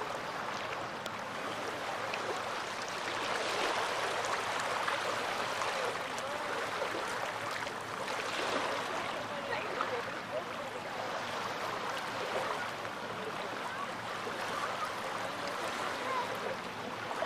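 Small waves washing and lapping on a beach in a steady rush that swells and eases every few seconds, with faint voices in the distance.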